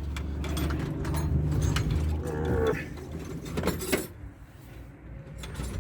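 A man's long, low straining groans while hauling a big toolbox out of a pickup's cab, with a few sharp knocks of the box near the end.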